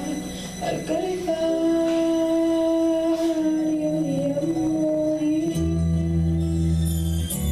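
A girl singing a slow song into a microphone over an instrumental accompaniment, holding long notes. A low bass note comes in about five and a half seconds in.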